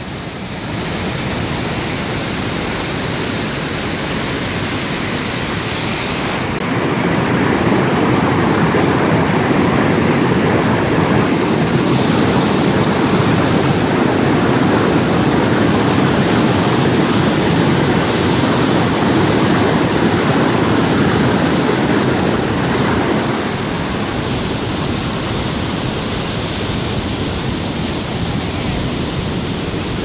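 Steady rushing of water spilling through a dam, growing louder about seven seconds in and easing back a few seconds before the end.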